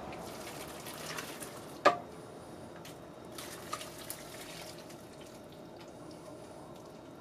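Hot braising liquid poured from a pan into a slow cooker's crock, splashing in two spells, with one sharp knock about two seconds in and a couple of light clicks.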